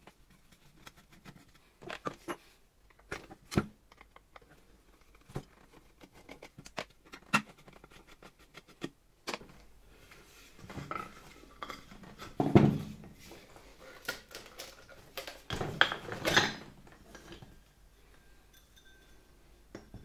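A screwdriver working screws out of the casing of an old Hoover Dustette 2614B handheld vacuum cleaner while the parts are handled and pulled apart: scattered clicks and clinks, with two louder stretches of scraping and knocking, one just past the middle and one later on.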